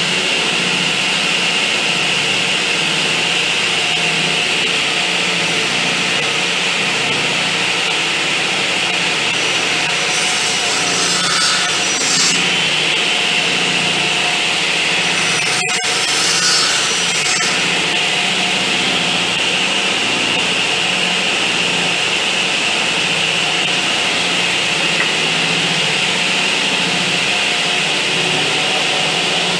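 Table-mounted circular saw running steadily, cutting the cheeks of a tenon in a small upright board in light passes. The blade cuts into the wood about ten seconds in and again about fifteen seconds in, with a sharp click during the second cut.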